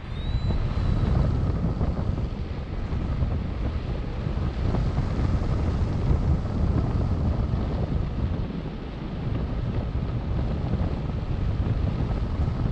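Wind buffeting the microphone of a harness-mounted camera in paragliding flight: a steady, rumbling rush of airflow.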